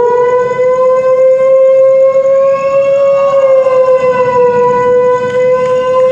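A police van siren imitated with the human voice: one long, loud held tone that rises at first and then holds, wavering slightly in pitch.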